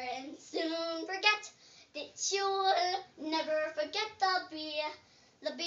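A young girl singing an improvised tune unaccompanied, in short phrases of held notes broken by brief pauses.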